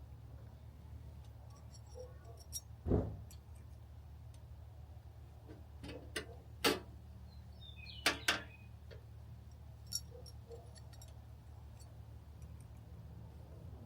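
Scattered metallic clinks and knocks of hand tools and parts being handled during disassembly, with a heavier knock about three seconds in and a quick pair of clinks about eight seconds in, over a steady low hum.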